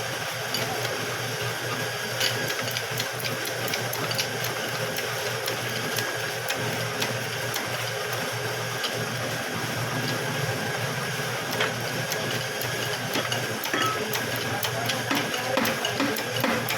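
A steady machine running with a constant low hum, with frequent small clicks and light metallic ticks over it.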